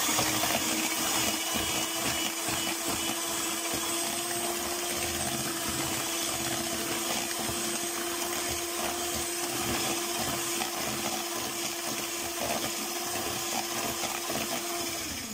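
Electric hand mixer running steadily at one even pitch, its beaters whipping eggs and sugar in a plastic bowl; the motor cuts off near the end.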